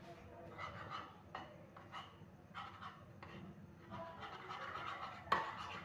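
A plastic spoon stirring cocoa powder into milk in a small non-stick frying pan, making soft, repeated scrapes against the pan. A sharper tap about five seconds in is the loudest.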